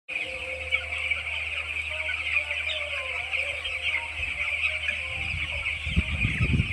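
A large flock of 11-day-old chicks peeping continuously, many high chirps overlapping, over a steady low hum, with low thumps in the last couple of seconds.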